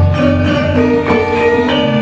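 Javanese gamelan ensemble playing a gending: bronze saron and demung metallophones struck with wooden mallets in a steady run of notes, over held, ringing tones from the rest of the orchestra. A deep low tone sounds under the first second.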